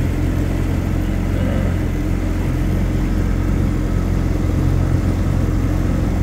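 Boat engines running steadily at slow cruising speed: an even, low engine drone over a steady wash of noise, with a personal watercraft running alongside the boat.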